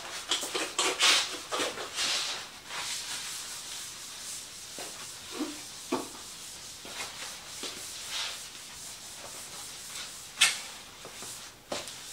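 Cloth wiping a countertop in quick rubbing strokes, with a few sharp knocks as things on it are moved; the loudest knock comes about ten seconds in.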